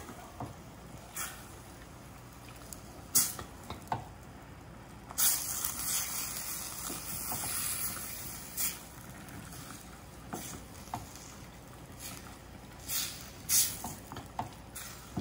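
Wooden spatula stirring and scraping ground meat, vegetables and refried beans in a stainless steel saucepan, with irregular knocks of the spatula against the pan and a soft sizzle from the filling. The sizzling grows louder for a few seconds about five seconds in.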